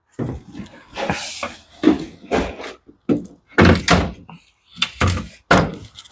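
Parts of a Samsung heat pump tumble dryer's cabinet being pulled out and handled during disassembly: a series of knocks and clunks, with a short scrape about a second in.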